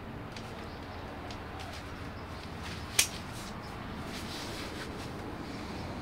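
Quiet outdoor ambience with faint, scattered high chirps and ticks, and a single sharp click about halfway through.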